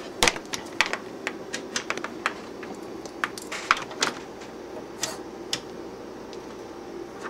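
Irregular sharp clicks and taps from hands working bench test gear: probe cables and connectors being handled, and oscilloscope front-panel buttons and knobs being pressed and turned. The clicks come several times a second and thin out after about five seconds, over a steady low hum.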